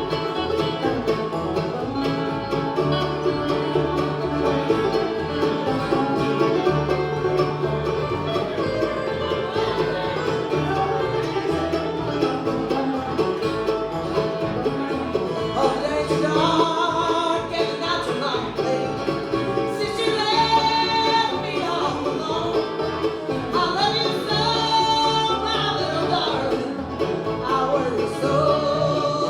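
Live acoustic bluegrass band playing a song, with banjo and guitar, and a wavering melody line standing out from about halfway through.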